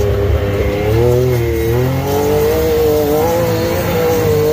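Can-Am turbo side-by-side's engine running under throttle while driving on sand, its pitch rising and falling as the throttle changes, heard from inside the open cab.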